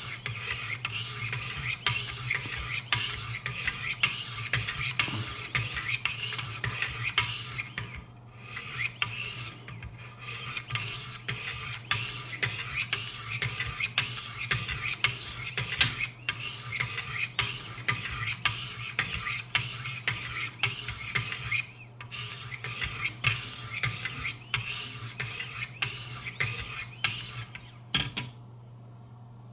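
400-grit stones of a Wicked Edge guided sharpener stroked along both sides of a knife blade: a continuous rasping run of quick strokes with a few short pauses, stopping shortly before the end. A steady low hum runs underneath.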